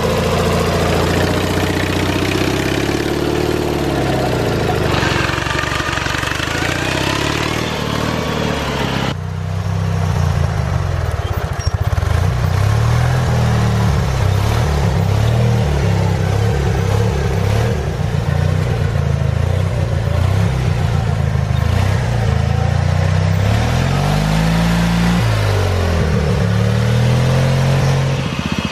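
Small engines of modified off-road lawn tractors running and revving up and down as they crawl over rough trail. The sound changes abruptly about nine seconds in.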